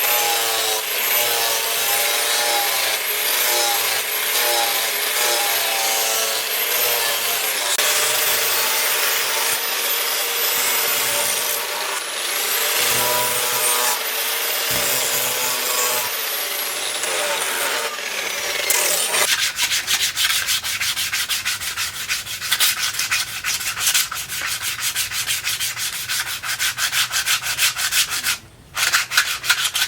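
A power tool runs with a steady high whine and wavering hum for about the first nineteen seconds, then cuts off, and rapid, even rubbing strokes follow: hand sanding or filing of the knife being finished.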